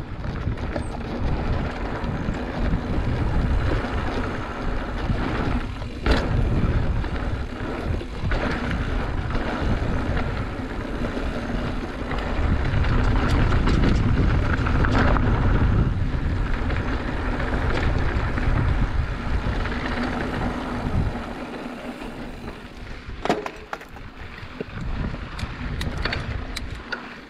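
Mountain bike rolling fast down a rocky dirt trail: wind buffeting the microphone over the rattle of the bike and tyres on loose dirt and stones. A few sharp knocks stand out, about six seconds in and twice near the end, as the ride gets quieter and more broken.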